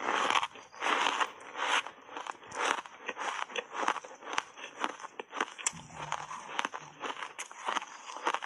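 Close-up chewing of ice chunks coated in matcha powder: repeated crunches and crackles as the ice breaks between the teeth, heavier crunches near the start giving way to quicker, smaller crackles.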